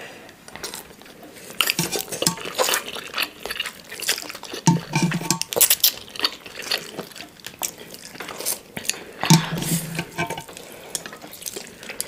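Close-miked eating of instant noodles: slurping and chewing, with a fork and chopsticks clicking and scraping on ceramic plates. Two short low hums come about five and nine seconds in.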